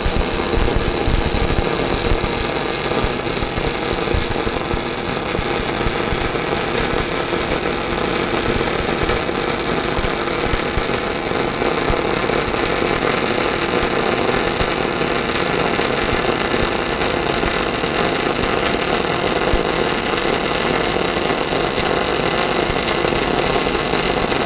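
MAG (gas-shielded MIG) welding arc from an EWM Picomig 305 Puls, set to about 131 amps, running a bead along a vertical joint between 5 mm steel plates: a steady, unbroken sizzling crackle of the short arc.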